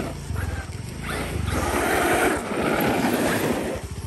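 Traxxas X-Maxx electric RC monster truck driving back over brick pavers. Its tyres and drivetrain make a noisy rumble that swells and fades a few times.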